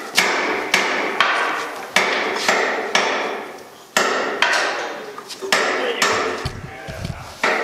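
Hand hammer striking the steel of a Panzer IV tank chassis part, about a dozen blows at roughly two a second with short pauses, each one ringing briefly. The blows are knocking a stuck, corroded part loose.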